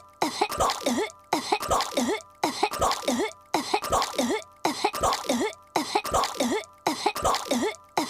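A young girl's cartoon voice coughing and hacking, choking on gum, as one short clip looped over and over. It repeats about once a second, with a brief gap between repeats.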